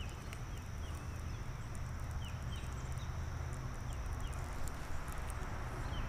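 Outdoor ambience: insects droning steadily, with short, high, falling chirps repeating every second or so, over a low rumble.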